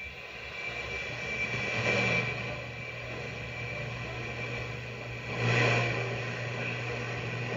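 A 1950s RCA AM/FM tube radio's loudspeaker at full volume, giving a rushing, distorted sound over a steady low hum, swelling about two seconds in and again near the end. The output tube just fitted has grid leakage, which makes the radio's audio distort and fade away.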